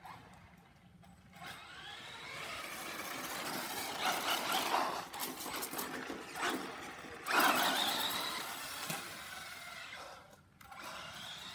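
Electric RC truck (Traxxas) driving on concrete: its motor and gears whine, rising and falling in pitch as it speeds up and slows, over the rush of its tyres. It is loudest about four seconds in and again about seven and a half seconds in, then fades briefly near the end.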